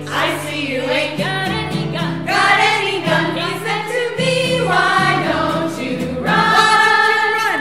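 A song playing: several voices singing held notes over steady bass notes.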